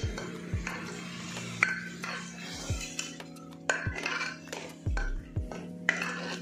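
A metal ladle stirring a watery curry in an aluminium pressure cooker, knocking and scraping against the pot's sides and bottom about once a second.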